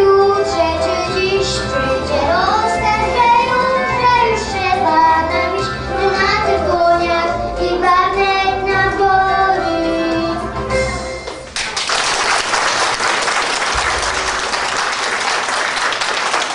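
A boy sings a Polish patriotic song into a microphone over musical accompaniment with a steady beat. The song ends about eleven seconds in, and the audience then applauds.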